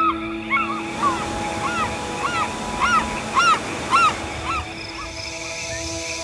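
Birds calling: a run of short calls, each rising and then falling in pitch, about one every half second or so, loudest around three and a half to four seconds in and stopping near five seconds. Steady sustained tones hum underneath.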